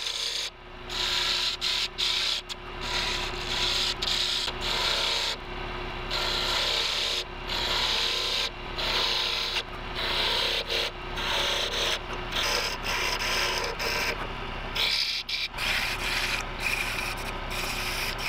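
A turning chisel cutting ridges into a small piece of fir spinning on a wood lathe: repeated scraping cuts about a second long with short gaps. The lathe's motor hums steadily underneath.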